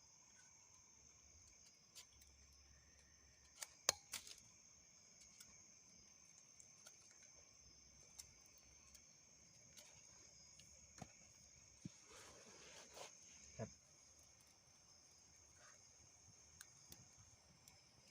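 Faint steady chirring of crickets and other night insects, with a few sharp clicks and knocks about four seconds in and a brief rustle around twelve seconds.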